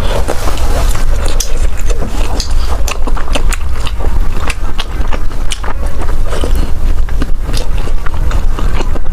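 Close-miked eating sounds: chewing and mouth clicks, a quick irregular patter of small wet clicks.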